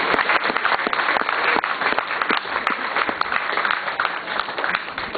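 Spectators applauding: many quick claps blending into a dense, even patter that eases a little towards the end.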